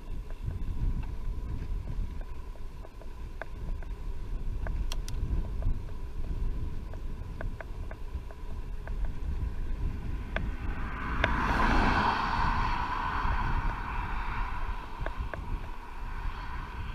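Wind buffeting the microphone of a bicycle-mounted camera on the move, a steady low rumble, with scattered sharp clicks. About ten seconds in, a broad hiss swells up, then fades over the next few seconds.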